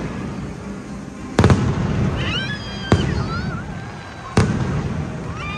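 Aerial firework shells bursting overhead: three loud bangs about a second and a half apart, each trailing an echo.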